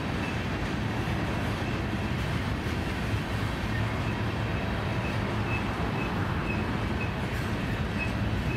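Freight train of boxcars rolling past at steady speed, the wheels on the rail making a continuous rumble. A faint, high squeak repeats about twice a second through it.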